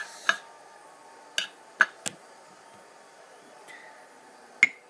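A small glass tumbler knocking and clinking as it is handled and set down: five short sharp taps, three of them close together in the first half, one more near the end, over a faint steady hum.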